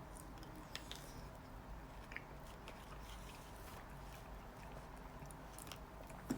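Faint sounds of someone eating shaved ice: chewing and scattered small clicks, with a sharper knock near the end.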